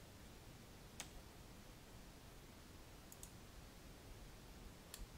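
Faint clicks of a computer mouse and keyboard over near silence: one about a second in, a quick pair around three seconds, and another near the end.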